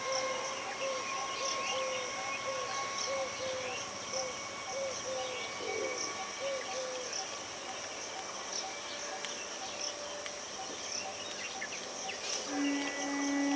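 Steady chorus of insects, crickets among them, with a short call repeated about twice a second through the first half. A steady low tone sounds for about a second and a half near the end.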